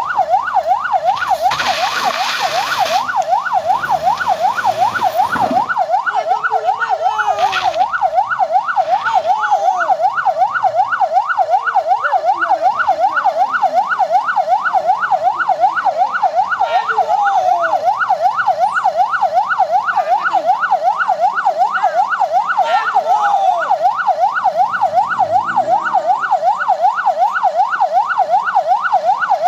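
Electronic siren on a rapid yelp, its pitch rising and falling about three times a second without pause. There is a short burst of hiss about two seconds in.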